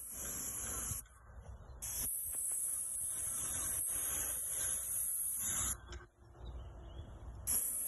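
Paint sprayer gun hissing in bursts as the trigger is pulled and released: about a second of spray, a short break, nearly four seconds of spray, a pause of almost two seconds, then spraying again near the end. A low rumble runs underneath.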